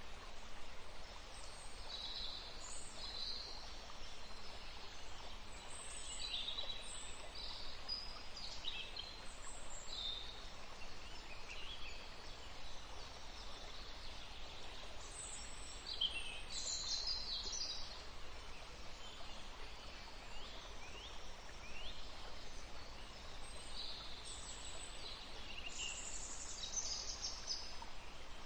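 Several songbirds chirping and trilling in short high phrases throughout, over a steady soft background hiss.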